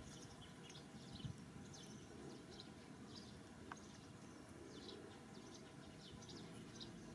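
Near silence: quiet outdoor background with small birds chirping faintly and often, and one soft knock about a second in.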